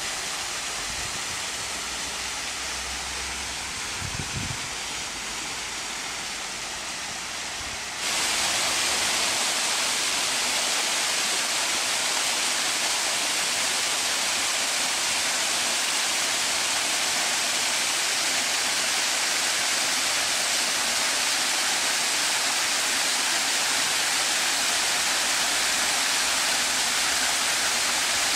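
Small rock-cascade garden waterfall pouring into a pond: a steady rush of falling and splashing water. About eight seconds in it becomes suddenly louder and brighter, as the sound is taken from closer to where the water hits the pool.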